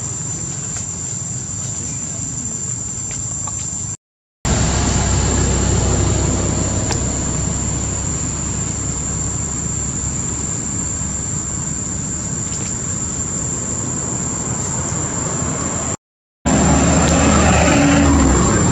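Steady outdoor background noise with a low rumble and a constant high whine, broken twice by a moment of dead silence where the footage is cut.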